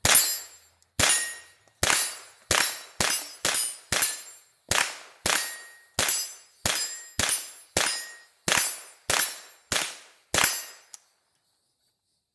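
AR-15 rifle fitted with a CMMG .22 LR conversion kit, firing about seventeen .22 LR rounds in semi-automatic at an uneven pace of a shot every half second to a second, each a sharp crack. The string stops after about eleven seconds.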